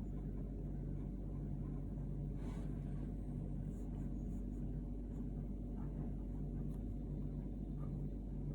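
A steady low rumble with a droning hum in it, holding an even level throughout.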